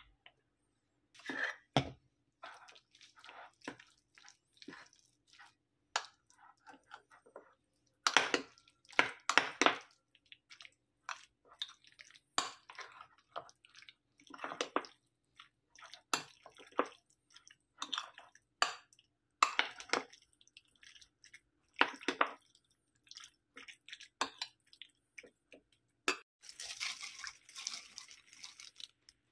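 A metal spoon mixing a wet tuna, crab stick and mayonnaise filling in a ceramic bowl: irregular squelches, scrapes and clinks of the spoon against the bowl. Near the end comes a denser few seconds of rustling noise.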